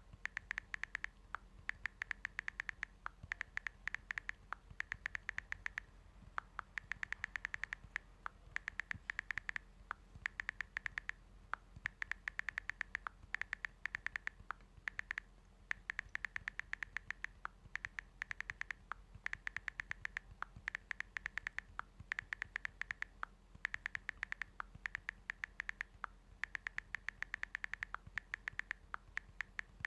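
Typing on a smartphone's touchscreen keyboard: rapid keyboard clicks and taps in quick runs of about a second, with short pauses between runs.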